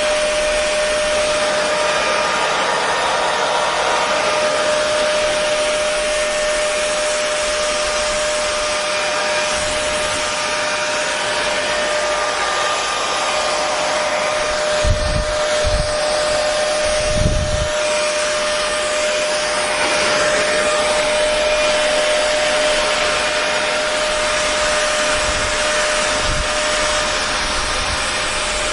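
Electric hair dryer running steadily: a constant rush of air with a steady whine from the motor. A few brief low thumps come about halfway through.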